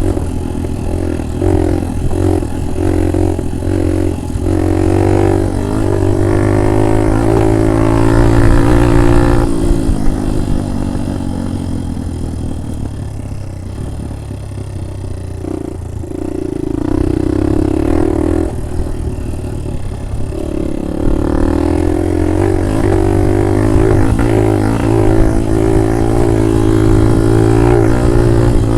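Small motorbike engine running under way on a rough road, its note rising and falling with the throttle. About ten seconds in it drops lower and quieter for several seconds, then picks up again.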